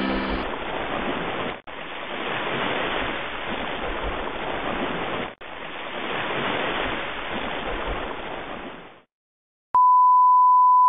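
Ocean surf washing in and out in three swells, each cut off sharply at the joins of the sound effect, stopping about nine seconds in. After a short silence, a steady pure tone starts near the end.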